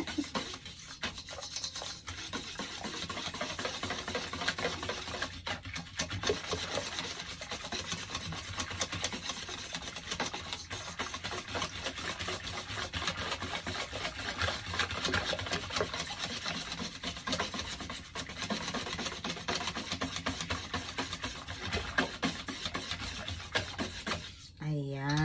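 A utensil stirring thin kutsinta batter in a bowl, a steady run of quick scrapes against the bowl with a couple of brief pauses, mixing the flour and water until no lumps are left.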